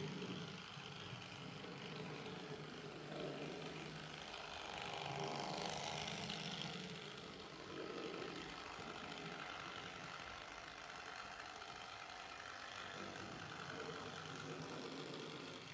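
Vintage Rivarossi model three-axle electric shunting locomotive with a Trix motor, running along the track: a steady motor hum with the wheels rolling on the rails, swelling and easing a little as it goes.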